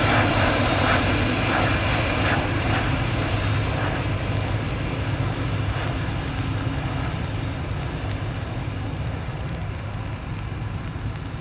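Jet engines of a Boeing 767 airliner, an even roar with a steady low hum, fading steadily as the aircraft moves away.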